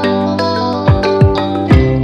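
Background music: plucked, guitar-like notes over held chords, with three deep bass hits that drop in pitch in the second half.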